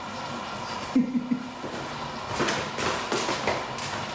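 Several light knocks and clatters of cookware being handled, about five of them in the second half, after a brief vocal hum about a second in.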